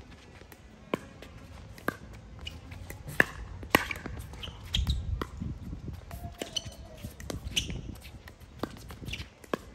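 Pickleball paddles striking a hard plastic ball in a rally: a series of sharp pops, roughly one a second, some harder than others.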